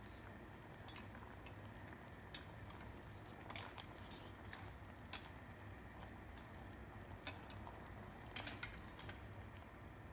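Metal slotted turner clinking against a stainless steel pot as orange slices are lifted out of syrup: scattered light clinks, with a quick cluster of them near the end.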